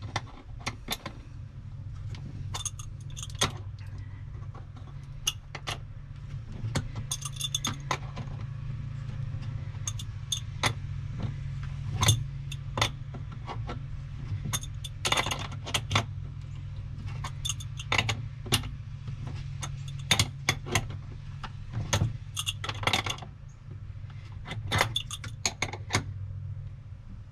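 A small hand wrench clinking and clicking against the nuts and lugs on a boat battery's terminals as the cable connections are tightened: irregular, sharp metallic clicks, over a steady low hum.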